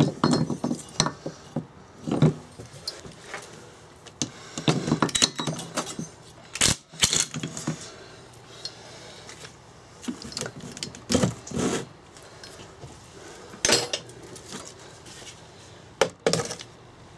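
Irregular metal clinks and knocks of a steel flywheel removal tool and hand tools being fitted to, and handled against, the flywheel and crankshaft end of a Briggs & Stratton 2hp engine during teardown.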